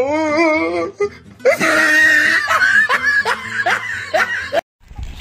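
A wavering laugh, then music with a regular beat. The music cuts off suddenly near the end.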